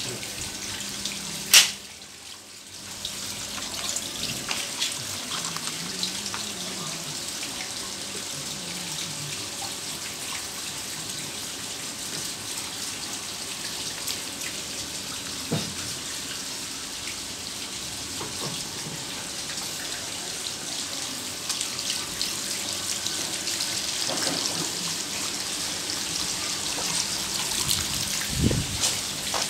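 Water running steadily into a garden pond, a continuous splashing hiss. A single sharp click sounds about one and a half seconds in.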